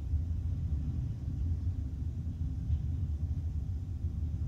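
Norfolk Southern double-stack intermodal freight train rolling past, a steady low rumble heard muffled from inside a vehicle's cabin.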